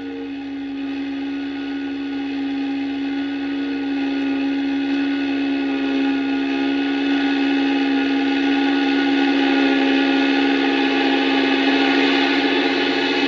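A steady whirring, motor-like drone with a strong low hum and many held higher tones, slowly getting louder.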